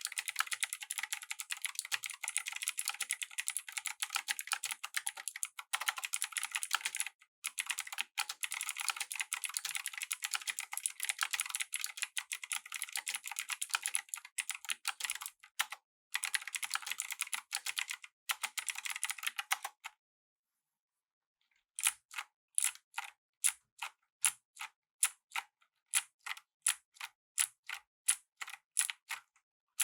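Razer BlackWidow V3 Pro mechanical keyboard with clicky green switches being typed on rapidly, in a dense stream of clicks with a few brief breaks. About twenty seconds in the typing stops, and after a short pause single keys are struck slowly, about two a second.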